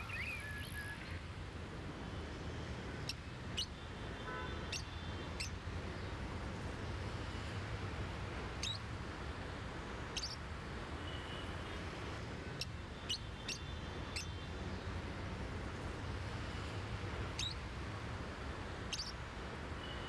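Small birds chirping: short, high chirps every second or so over a steady low hum and hiss.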